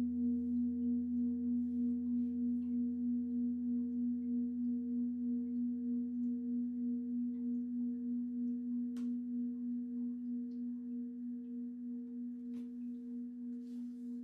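A Hess Klangkonzepte singing bowl ringing on after a strike: one low tone with fainter overtones, wavering in an even beat of about two to three pulses a second and slowly fading.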